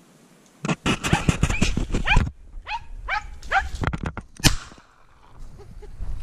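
Podenco andaluz hunting dog giving tongue in the brush: a quick run of barks about a second in, then three yelps that each fall in pitch. About four and a half seconds in comes one loud, sharp crack, the loudest sound.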